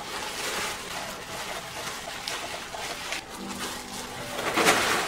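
Clear plastic bag wrapping rustling and crinkling as a heavy silicone mermaid tail is pulled out of it, with a louder crinkle near the end. A short, low, steady tone sounds about three and a half seconds in.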